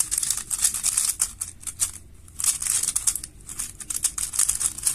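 A 3x3 plastic speed cube, the Moyu Weilong WR M, is being turned quickly by hand. Its layers make dense runs of rattling clicks, with two short pauses.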